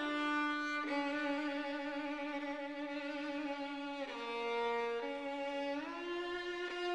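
Background music: a slow melody on a solo bowed string instrument. It holds long notes, with a step down about four seconds in and a smooth slide up near the end.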